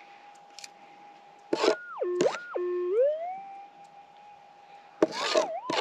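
Minelab GPX 6000 metal detector's steady threshold hum. Twice it swoops up in pitch, drops low and climbs back as a scoop of dirt holding a small piece of lead is passed over the coil, signalling the metal target. The dirt rattles in the plastic scoop each time it is moved.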